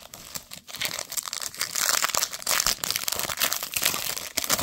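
Foil wrapper of a Panini Absolute Football trading-card pack being torn open and crinkled in the hands: a dense run of crackling that dies away near the end.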